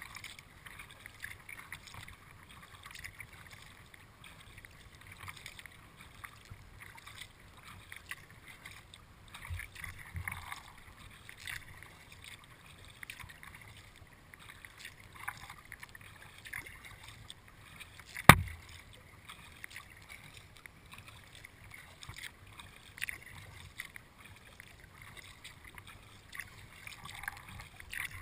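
Kayak being paddled across calm water: soft, irregular splashes and drips from the paddle strokes, with water lapping at the hull. One sharp knock about two-thirds of the way through is the loudest sound.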